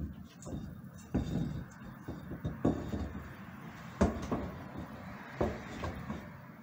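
Irregular clunks, knocks and scraping of a round metal flush-mount ceiling light fixture being pushed up and shifted against the ceiling and its mounting plate while its screws are lined up. The sharpest knock comes about four seconds in.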